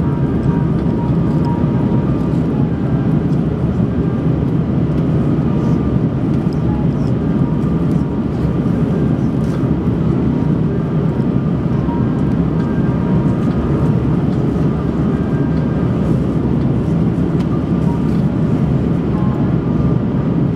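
Steady cabin noise of an Airbus A330 airliner climbing after take-off, heard from a window seat: a loud, even rumble of engines and airflow, heaviest in the low range, with faint thin tones above it.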